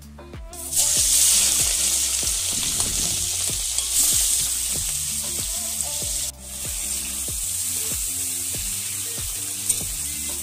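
Turmeric-coated prawns sizzling loudly in hot oil in a steel wok, the sizzle starting about a second in as they go into the oil. It drops out briefly about six seconds in, then carries on while they are turned with a spatula.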